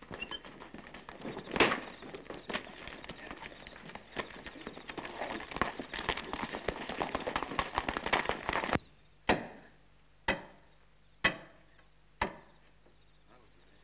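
Dense crackling and scuffling noise for most of the stretch. Near the end it gives way to four heavy knocks, about one a second: a club pounding the stone sill of a barred cell window, chipping at the masonry around the bars.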